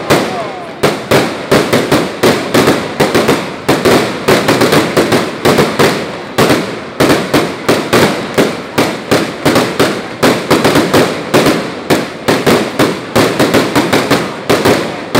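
Fireworks display: a rapid, continuous barrage of loud, sharp bangs from aerial shells bursting overhead, several a second, with a few brief pauses.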